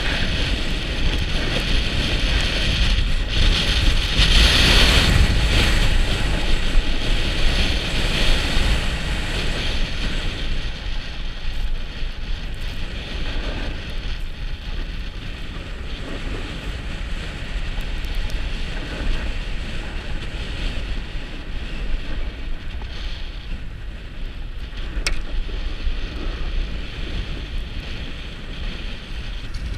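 Wind rushing over a helmet-mounted camera's microphone, with skis hissing and scraping over groomed snow during a downhill run. It is loudest and brightest over the first several seconds, then settles to a steadier rush.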